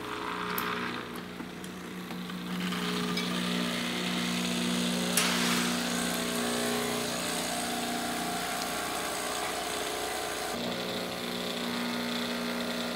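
De'Longhi Lattissima One Nespresso machine's pump buzzing steadily as it runs the rinse cycle, flushing water through to clear out the descaling solution. There is a single clunk about five seconds in.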